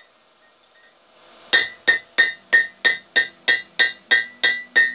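Hammer blows on a hot ring over the anvil horn: after a short pause, about a dozen quick, even strikes, roughly three a second, each with the same bright anvil ring.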